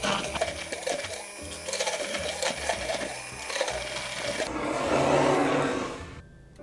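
Electric immersion blender running as it blends. Near the end the sound turns duller and then stops.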